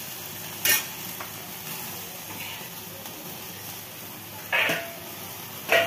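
Tandoori-marinated chicken sizzling on a wire grill directly over an open gas flame as it is charred for a smoky flavour. A steady hiss runs under three sharp crackles, one just under a second in and two near the end.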